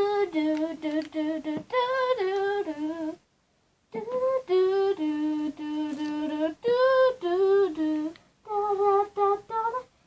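A young girl singing a tune in held, wavering notes, phrase after phrase, with a short pause about three seconds in.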